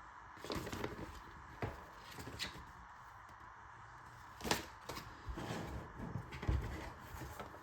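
Light handling noises: soft rustling with a few sharp clicks and taps as objects are picked up and set down on a work surface.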